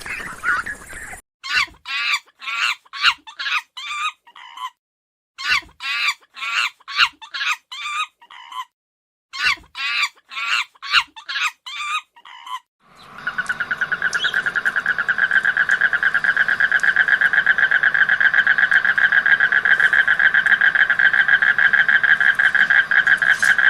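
Animal calls: three bouts of short, rapidly repeated calls with brief gaps between them, then a loud, steady, fast-pulsing trill from about 13 seconds in.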